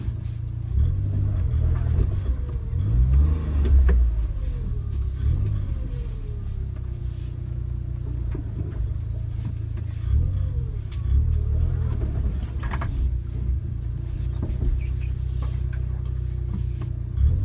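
Suzuki Jimny's engine running while driving, the revs rising and falling several times, with a few short knocks and rattles along the way.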